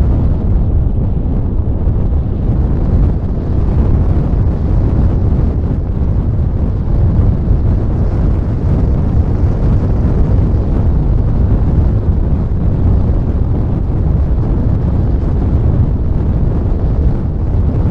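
Wind rushing over the microphone of a camera mounted in the open cockpit of an RC sailplane in flight: a loud, steady low rumble of wind buffeting with no pitched motor sound.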